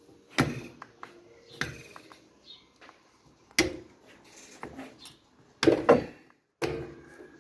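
Metal hand tools and engine parts clinking and knocking while a motorcycle engine is being dismantled: about half a dozen separate sharp clinks, irregularly spaced, the loudest about six seconds in.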